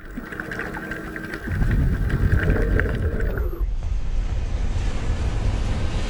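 Logo-animation sound effect: a faint hum with light clicks, then about a second and a half in a loud, low rushing rumble like wind that carries on steadily.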